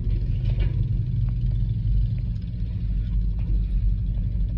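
Vehicle engine running steadily, a low rumble heard from inside a pickup truck's cab.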